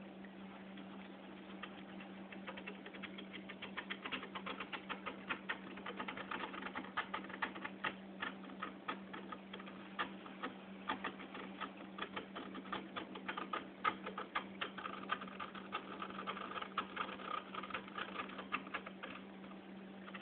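Piranha Float magnetic aquarium glass cleaner, its dull Easy Blade scraper drawn slowly across the inside of the glass. The blade clicks rapidly and irregularly as it scrapes off encrusting coralline algae. The clicking starts about two seconds in, over a steady low hum.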